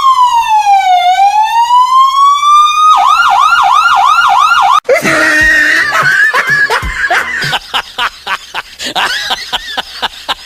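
Electronic police siren: a slow wail that falls and rises again, then switches to a fast yelp for about two seconds and cuts off abruptly about five seconds in. A jumble of voices and laughter follows.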